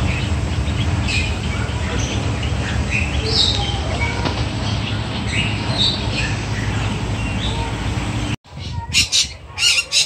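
Small birds chirping in short scattered notes over a steady low hum. About eight seconds in the sound breaks off, and a rainbow lorikeet gives several loud, harsh squawks.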